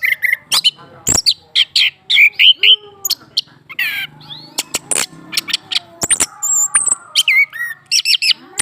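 A male chestnut-capped thrush sings a rapid, varied song of warbled notes and pitch glides, studded with many sharp clicking notes. It is the excited song of a male stirred by a female kept close by.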